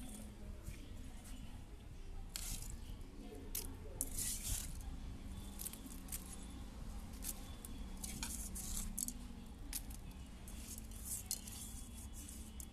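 Broken eggshells rattling and clinking against an aluminium pan as they are shaken out into plant pots: a scattered run of light clicks and rustles, over a faint steady low hum.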